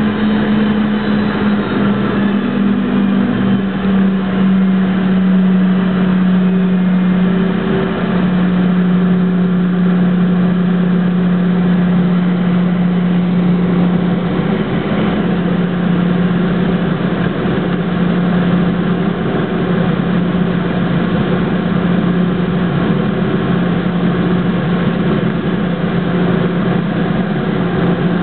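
Jet airliner's engines running at taxi power, heard from inside the passenger cabin: a steady low drone over a constant rushing hiss, the drone shifting slightly in pitch about seven or eight seconds in.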